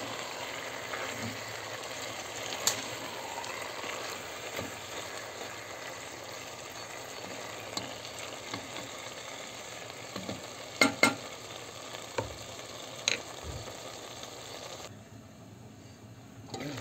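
Chicken strips, mushrooms and onions sizzling in a hot pot as they are sautéed, with a wooden spoon stirring through them. A few sharp knocks stand out, the loudest a pair about eleven seconds in, and the sizzle drops away near the end.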